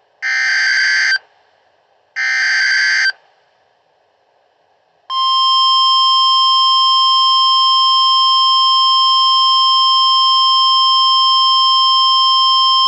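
Weather radio broadcasting an Emergency Alert System warning. First come two short digital data bursts of the SAME alert header, each about a second long and a second apart. After a pause, the long steady weather alert tone starts about five seconds in and holds. The sequence announces the severe thunderstorm warning that follows.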